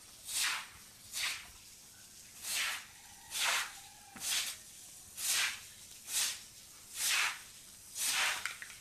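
Short broom swept in brisk strokes over wet concrete, swishing water across the ground, about one stroke a second.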